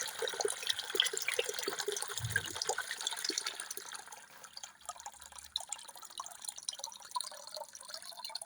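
Trapped water draining out of a BEKO washing machine's pump filter opening into a bucket, splashing steadily at first and easing to scattered drips after about four seconds; the drum held standing water because the filter is blocked. A dull knock about two seconds in.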